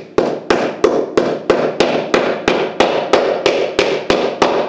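Steel claw hammer driving a small white plastic fitting into a hole in a laminated wooden cabinet panel: quick, even hammer strikes, about three a second.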